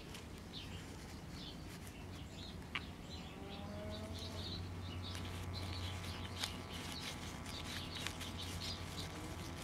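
1948 Travler five-tube AM radio humming steadily through its speaker, with faint whistles and chirps over the hum, while it is being tested with filter capacitors bridged in on clip leads.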